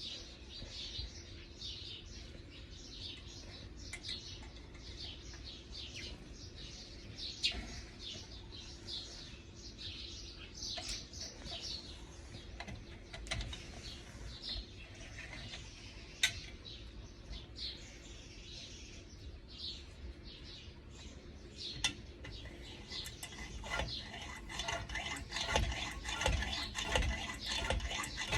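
Small birds chirping repeatedly with short, quick, falling calls over a faint steady hum. Clinking and knocking starts in the last few seconds.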